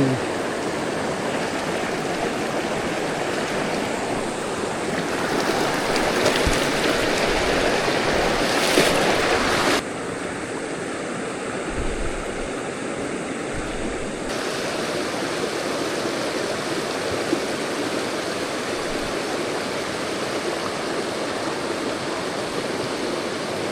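River water rushing steadily over rocks. The rush swells a little for a few seconds, then drops suddenly about ten seconds in.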